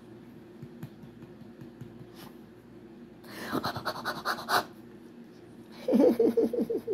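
A small dog licking itself in two quick rhythmic bouts, the second lower and louder near the end, over a steady low hum.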